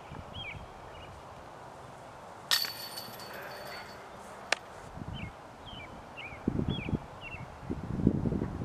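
A thrown disc strikes the hanging chains of a disc golf basket about two and a half seconds in, a sudden metallic jangle that rings for about a second, followed by a single sharp click. A small bird chirps in short falling notes, and low thumps come near the end.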